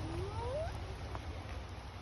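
A short cry rising steadily in pitch over about three quarters of a second, over a steady low rumble.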